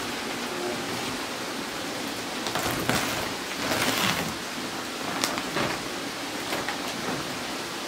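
Plastic fish-feed sacks rustling and crinkling as they are handled, in several short bursts over a steady hiss.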